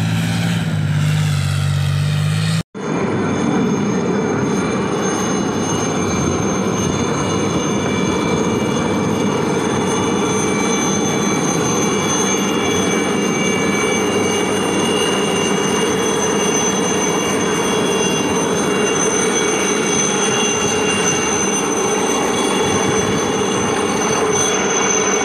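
A tracked armoured vehicle's engine runs with a low hum for the first few seconds, then cuts off abruptly. A low-flying helicopter follows: a steady high turbine whine with several high tones over a rushing rotor noise, holding steady to the end.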